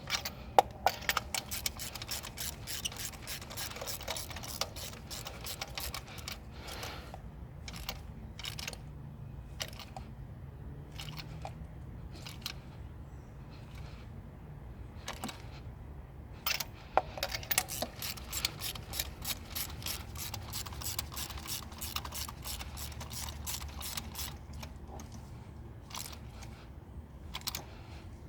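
Runs of rapid mechanical clicking, like a hand ratchet being worked, with single clicks between the runs, over a steady low hum.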